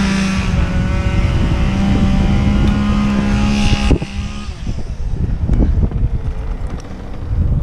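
Two-stroke Echo chainsaw held at full throttle at a steady high pitch, then let off about four seconds in. After that, low rumbling wind noise on the microphone and scattered knocks.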